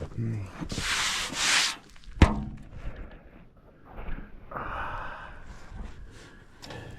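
Rubbing and scraping handling noises, with one sharp metallic clank that rings briefly about two seconds in.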